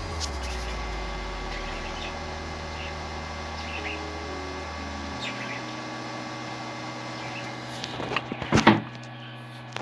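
Steady low hum from the running Peltier cooler setup, dropping to a different pitch about five seconds in. Near the end a short burst of metallic knocks and scraping as the stainless steel tumbler is lifted off the module's cold plate.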